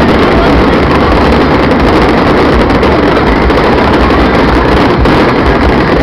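Wind buffeting the camera's microphone: a loud, steady rumble and rush with no distinct firework bangs.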